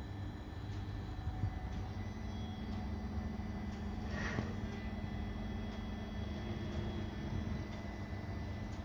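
Hoefler EMZ 632 gear measuring machine running under power while its probe checks a gear's tooth flanks: a steady low rumble and hum with faint steady whines, the hum growing a little stronger about two seconds in. A brief swish sounds about four seconds in.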